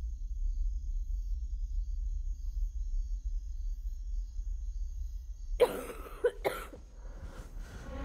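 A low steady drone, then about five and a half seconds in a person coughs three times in quick succession, the first cough the loudest.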